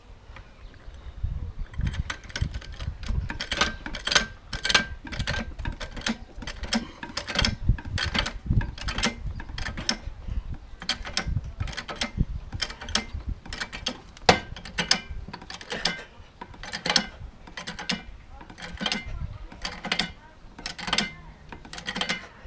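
Trolley jack being pumped to lift a car: repeated metallic clicks and clanks from the jack's pump handle and mechanism, about two a second, beginning about a second and a half in.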